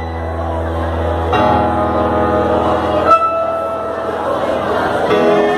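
Live rock band playing a slow power ballad: held keyboard chords over bass and guitars. The chords change about a second and a half in and again at about three seconds.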